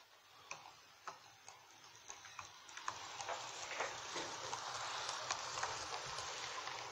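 H0-scale model train, a BR 218 diesel locomotive model with double-deck coaches, rolling on the track: its wheels click over the rail joints, first a few scattered clicks, then a rising rolling rattle with faster clicks from about three seconds in as the train comes close.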